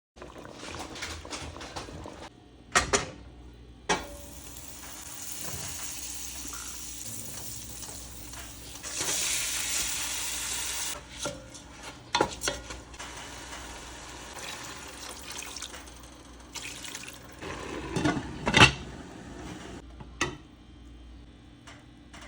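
Kitchen work: water running from a tap for several seconds, with dishes and utensils clattering and a few sharp knocks of pots or crockery.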